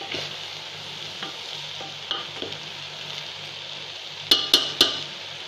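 A wooden spatula stirs and scrapes sugar-coated rice in a metal pot over a high gas flame, over a steady frying hiss. About four seconds in come three sharp knocks of the spatula against the pot.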